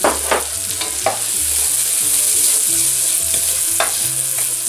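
Pioppino mushrooms sizzling in melted butter in a stainless steel saucepan, stirred with a wooden spoon, a few spoon scrapes standing out over the steady sizzle.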